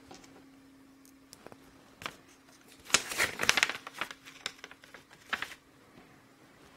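A sheet of scrap paper rustling and crinkling as it is handled, with a few light clicks and taps, the loudest rustling about three seconds in.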